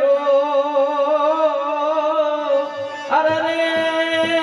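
A voice sings a long, wavering held note of a Kathiyawadi duho (folk couplet) to harmonium. About three seconds in, a fresh harmonium chord and a few drum strokes come in.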